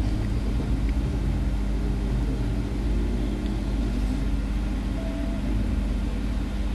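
Steady low background rumble with a constant hum, with a faint short tone about five seconds in.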